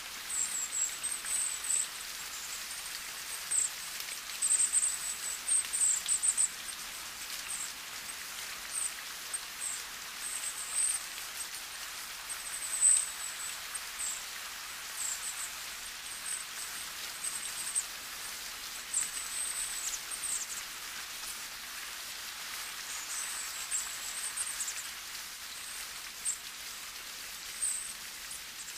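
Gentle rain falling on leaves, an even hiss. Over it, short high thin chirps come and go in small clusters throughout and make the loudest peaks.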